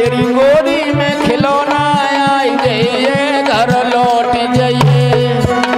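Indian folk-stage music: a wavering melodic line over held drone notes, with quick hand-drum strokes.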